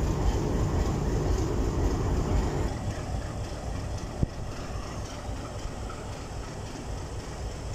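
Diesel locomotive engine running, a steady low rumble that drops noticeably about three seconds in. A single sharp click about four seconds in.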